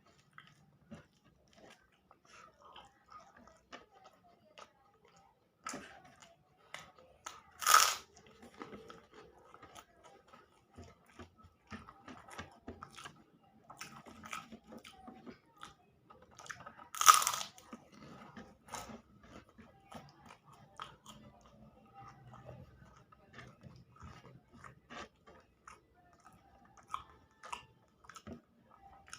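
Close-miked eating: a person chewing and biting food with many small wet clicks and crunches. Twice, a much louder sharp crunch stands out, once about eight seconds in and again about seventeen seconds in.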